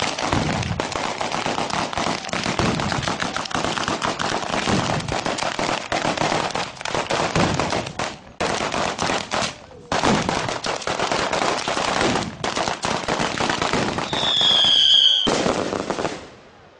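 Firecrackers going off in a dense, rapid crackle of bangs, with brief breaks around eight and ten seconds in. Near the end a whistling firework sounds a high whistle that falls slightly, lasting about a second.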